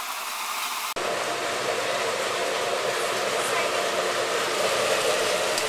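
Steaks and onions sizzling on a hot flat-top griddle, a steady hiss; about a second in it cuts abruptly to a louder, fuller sizzle.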